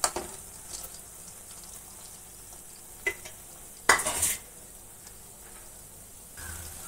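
Paste-coated soya chunks sizzling as they deep-fry in hot oil in an aluminium kadai: a steady high hiss. A few sharp clinks of a spoon are heard, the loudest, with a brief louder sizzle, about four seconds in.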